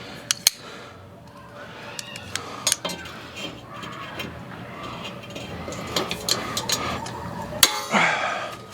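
Vise grips clinking and clicking on a rusted, seized exhaust manifold stud as the jaws slip and spin on it. Scattered sharp metal clicks come through a low clatter, with the loudest click near the end.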